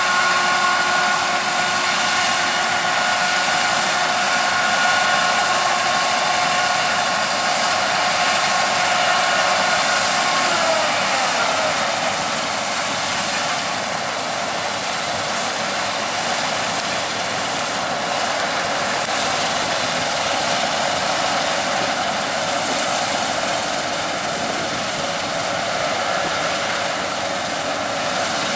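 Heavy harvest machinery running steadily, a broad mechanical rush with a high whine over it that slides down in pitch about ten seconds in and fades.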